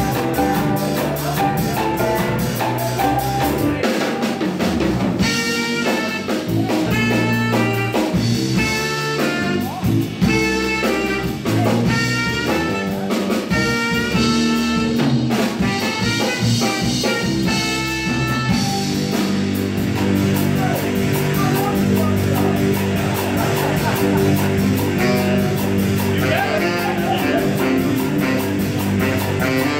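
Live jazz band of saxophone, electric bass and drum kit with keyboard. The saxophone plays fast runs of notes over the bass and drums, and about two-thirds of the way through the band moves to held chords over a steady groove.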